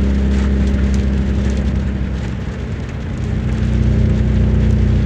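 Heavy rain falling steadily, over a steady low hum.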